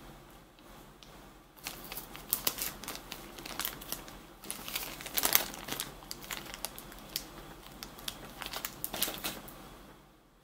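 Small clear plastic zip bag crinkling as it is handled and opened, a run of sharp crackles that is loudest about halfway through and dies away near the end.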